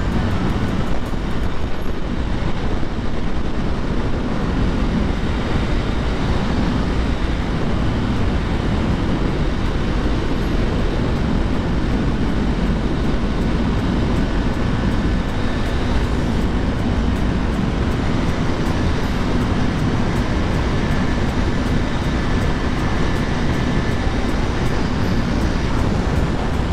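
Steady rush of wind on the microphone over the steady drone of a KTM Duke motorcycle's engine cruising at highway speed.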